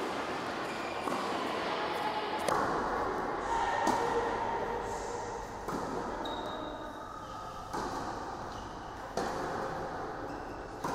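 Tennis ball struck by a racket and bouncing during a baseline rally, a sharp pop about every one and a half to two seconds, echoing in an indoor tennis hall.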